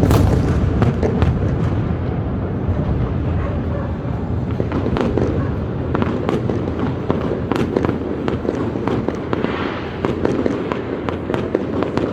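Fireworks display going off continuously: many sharp crackling pops over a dense low rumble of bursts, with a loud burst at the very start.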